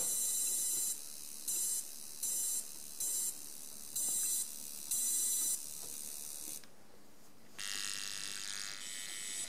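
Homemade EMF-detecting wand's speaker, fed from a pickup coil, giving out short bursts of high hiss that switch on and off irregularly, the magnetic noise of a radio transmission. It goes quiet for about a second near the middle, then gives a steady hiss with faint tones as it is held against a plug-in power adapter.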